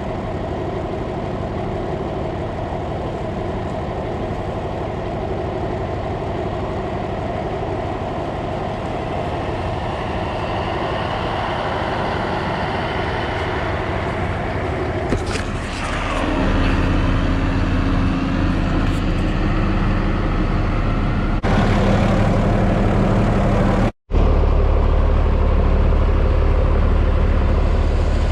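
Tractor engine running steadily under load. It gets louder and deeper a little past halfway, with a brief drop-out near the end.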